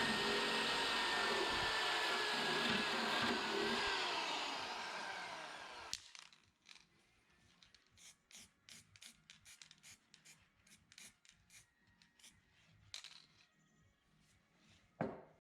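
A handheld power tool running with a steady whine, then switched off and spinning down over about two seconds. Then quiet hand work: light scraping and clicking, with a single knock near the end.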